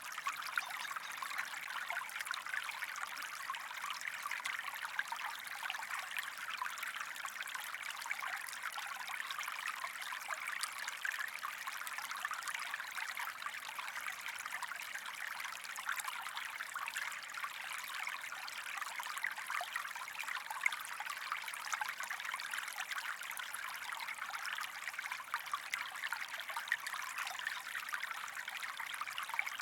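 Stream water running and trickling steadily, an even splashing hiss with fine bubbling crackle.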